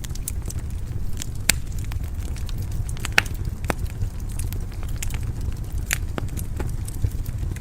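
Wood fire burning in a fireplace: a steady low rumble of the flames with irregular sharp crackles and pops, a few louder snaps scattered through.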